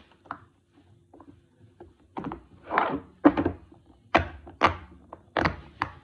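Silicone bubbles of a jumbo rainbow pop-it fidget toy being pressed through, a string of soft pops about two a second, starting about two seconds in after a few faint clicks.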